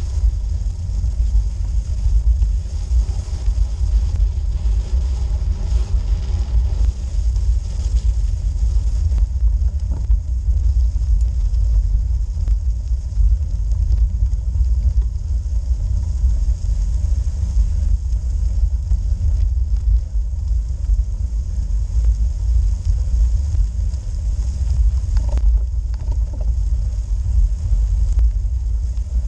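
Steady low rumble of wind buffeting and tyre and road vibration on a bicycle-mounted action camera while a road bike climbs slowly over a snowy, rough forest road.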